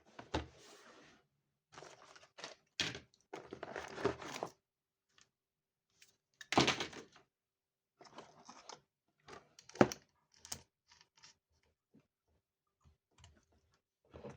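Irregular handling sounds of small tools and objects on a work surface: short knocks, clicks and brief scrapes with pauses between them, the sharpest knocks about six and ten seconds in.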